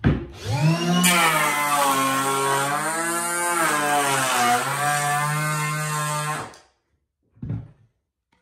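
Makita DKP180 18 V cordless power planer starting up, then its motor and cutter drum running with a steady whine while taking about a 1 mm cut along a hardwood board, with a hiss of cutting from about a second in and the pitch sagging under load in the middle of the pass. It switches off and spins down at about six and a half seconds, followed by a short thud.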